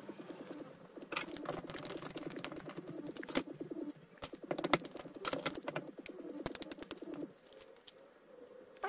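Small metal hardware (washers, nylock nuts and screws) clicking and clinking as hands fit it onto a blower motor's end plate, over a low wavering tone that stops about seven seconds in.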